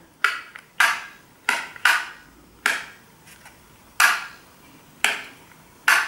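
ENER-J battery-free kinetic wireless light switch clicking as its rocker is pressed and springs back, about eight sharp clicks at irregular intervals, each with a short ring. Each press works the switch's kinetic mechanism, which powers it without batteries.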